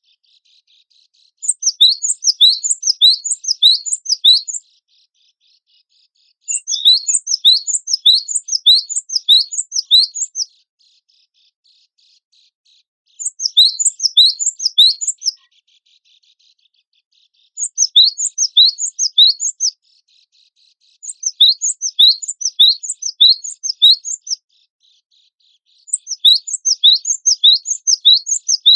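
Cinereous tit (gelatik batu) singing in repeated bursts of rapid, high chirps. Each burst lasts two to four seconds, with short pauses between them.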